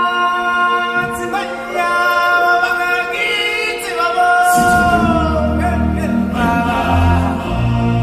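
Choir of voices singing long held, sliding notes as part of the show's music, with deep bass notes coming back in about halfway through.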